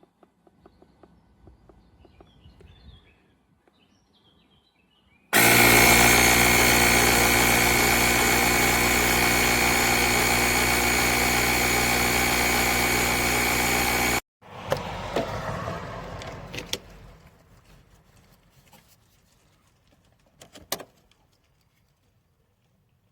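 Portable jump starter's built-in air compressor running steadily for about nine seconds, switching on and cutting off abruptly. It is followed by a few seconds of handling clatter and a couple of sharp clicks.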